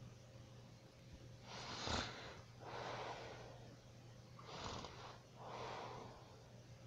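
A sleeping person snoring: two breaths about three seconds apart, each a short, harsh snort followed by a longer, softer breath. The first snort, about two seconds in, is the loudest.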